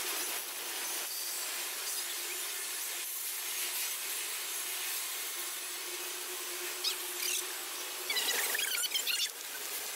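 Double-stack intermodal freight train passing, its well-car wheels running on the rail in a steady rushing noise. High wavering wheel squeal starts about eight seconds in.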